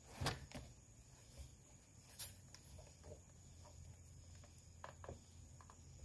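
Near silence with a steady faint hum, broken by a few faint taps and rustles as a plastic sun visor is handled and set face-down on a towel.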